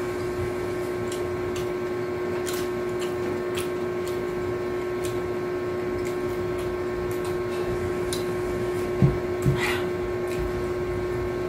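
A steady electrical hum at one constant pitch, with faint scattered clicks and a slightly louder click about nine and a half seconds in.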